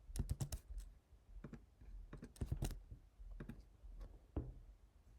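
Computer keystrokes in short irregular clusters: a quick run of taps at the start, then small groups of clicks every second or so.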